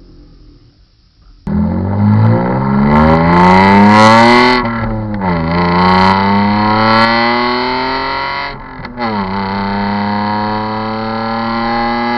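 BMW 328i's 2.8-litre twin-VANOS straight-six (M52TU) through a custom straight-pipe shotgun exhaust with no mufflers, starting suddenly and accelerating hard through the gears. The revs climb for about three seconds, fall sharply at a gear change, climb again, dip briefly at a second shift near the end, then rise slowly.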